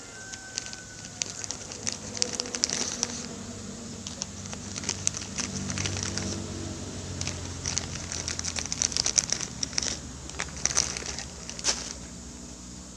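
Plastic wrapping crinkling and crackling in the hands in irregular bursts, as packaged durian bread is unwrapped and handled for a fishing bait mix.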